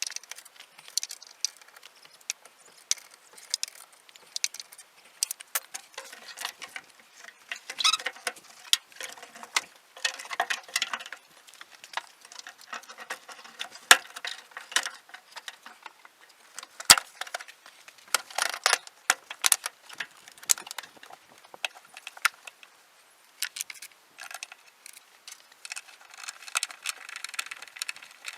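Irregular light metallic clinks, clicks and rattles of hand tools and parts being handled during suspension work, with two sharper knocks about halfway through.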